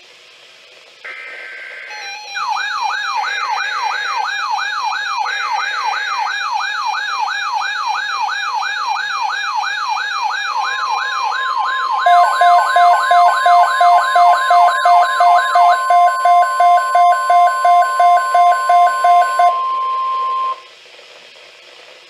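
NOAA Weather Radio Emergency Alert System tones for a severe thunderstorm watch. There are three short screechy SAME data bursts, then a steady warning tone about halfway through. Over these, weather alert radios sound their alarms: one a fast warbling siren, and another, which joins about halfway, a rapid string of beeps. All stop shortly before the end.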